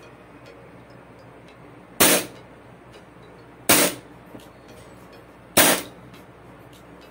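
WE M92 Beretta full-metal gas blowback airsoft pistol firing three single semi-automatic shots, a little under two seconds apart, each a sharp crack with the slide cycling.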